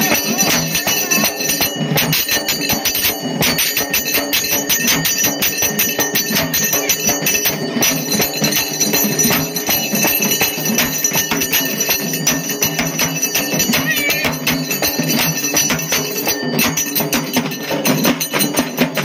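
Folk percussion music: fast, dense drumming with ringing bells and jingles, keeping a steady driving rhythm without a break.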